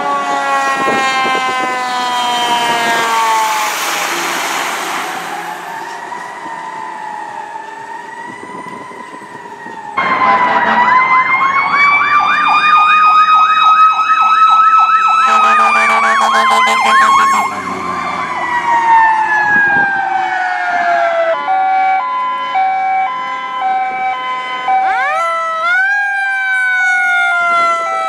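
Fire truck sirens from several passing fire engines in turn: a falling wail that fades into the distance, then a loud rapid yelp that slides back into a wail with a brief air-horn blast. Near the end an alternating two-note siren sounds over another wail that rises again about three seconds from the end.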